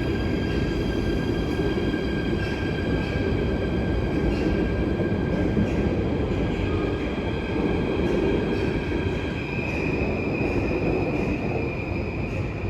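VIRM double-deck electric train pulling away, its traction equipment giving an unusual acceleration sound: several steady whining tones over the rumble of the running gear. About ten seconds in, one of the whines grows louder.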